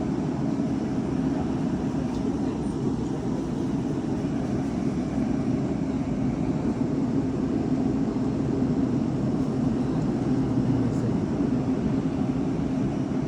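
Loud snoring: a continuous low rumbling drone that swells and eases slightly, without clear breaks between breaths.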